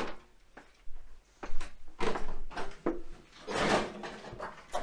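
Irregular scrapes and knocks, several short ones and one longer scrape a little past the middle.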